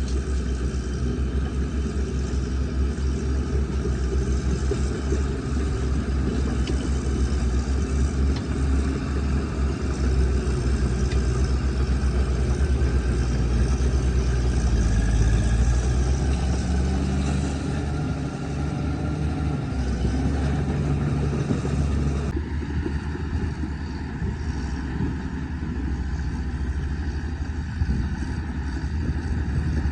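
Caterpillar bulldozer's diesel engine running under load, a steady low drone whose pitch shifts up and down for a few seconds in the middle; the sound changes abruptly about 22 seconds in.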